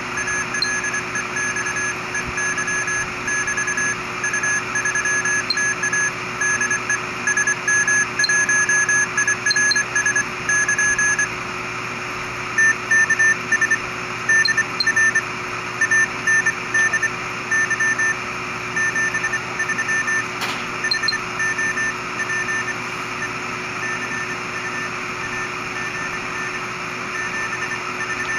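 Morse code (CW) received on shortwave around 14 MHz, in the 20-metre amateur band, played by a smartphone software-defined radio app. A keyed beeping tone sounds over steady band hiss, and about twelve seconds in a different signal with a slightly higher pitch takes over.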